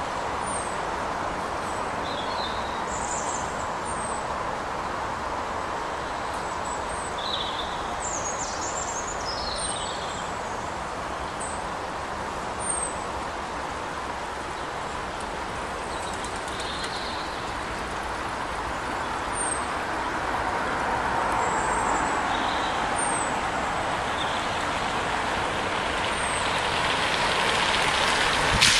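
Steady traffic noise from a wet road, with small birds chirping now and then. Over the last several seconds the sound of a car's engine and tyres on wet tarmac grows louder as it approaches the flooded stretch.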